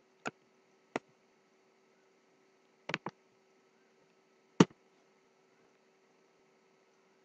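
Sharp clicks of a computer mouse while editing in Blender. There are single clicks about a third of a second and a second in, a quick double click near three seconds, and the loudest click about four and a half seconds in, over a faint steady hum.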